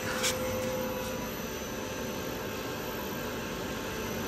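Steady hum and hiss of running plant machinery. A short knock about a third of a second in as a heavy cardboard-boxed engine part is set down on a platform scale.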